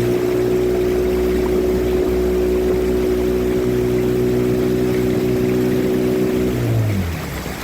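Motorboat engine running steadily under way, then throttled back near the end, its pitch and loudness falling.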